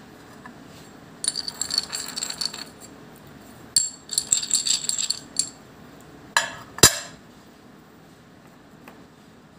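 A copper coin being handled and rubbed between fingers on paper: two bursts of rapid scratchy clicking, then two sharp knocks as it is set down, about seven seconds in.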